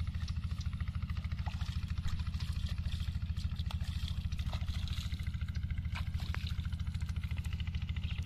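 A small engine running steadily, a low even pulsing that does not change, with a few faint ticks over it.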